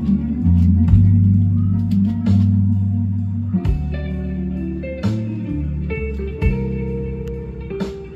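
Background music led by guitar, with a bass line underneath.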